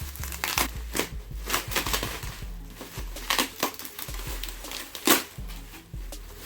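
Packaging being handled, crinkling and rustling in a string of sharp crackles, the loudest about five seconds in, over background music.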